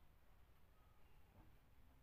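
Near silence: faint low room hum.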